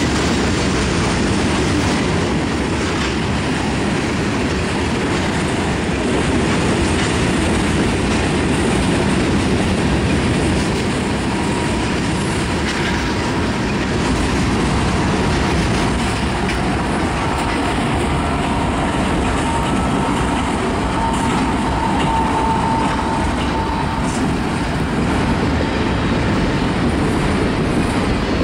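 CSX mixed manifest freight train rolling steadily past, a loud, continuous rumble of freight cars and wheels on the rails. A faint thin whine rises out of it from about halfway through and fades before the end.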